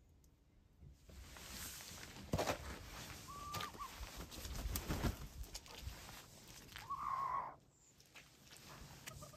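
Icelandic chickens foraging: a hen gives a short call about three seconds in and a longer, louder one near the end, over a rustling noise with a few sharp knocks.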